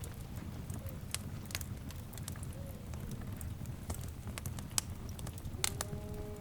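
Wood fire crackling, with irregular sharp pops and snaps over a low steady rumble of flames. Faint short whistling tones come in near the end.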